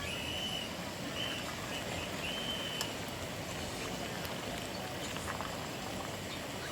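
Steady outdoor background noise with a few short, level, high-pitched animal calls repeated in the first three seconds.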